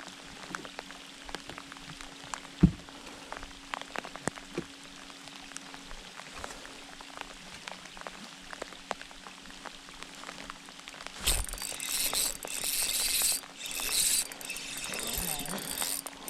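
Light rain ticking in scattered drops over a faint steady hum. About eleven seconds in, a louder rough whirring starts and stops in short spells: a spinning fishing reel being cranked in as a fish is hooked.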